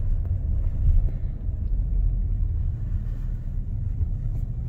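Steady low rumble of an SUV's engine and tyre noise heard inside the cabin while driving in city traffic.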